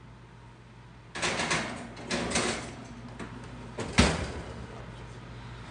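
A covered Dutch oven sliding onto the oven rack with scraping and rattling, then the oven door shutting with a single thud about four seconds in.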